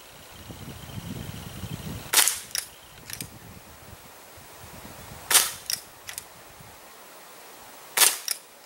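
Three shots from a Crosman Vigilante CO2 pellet revolver, about three seconds apart, each sharp crack followed by one or two fainter clicks.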